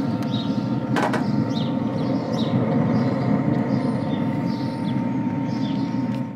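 Steady hum of a Traeger pellet grill's fan running, with short bird chirps repeating about once a second above it and a single click about a second in.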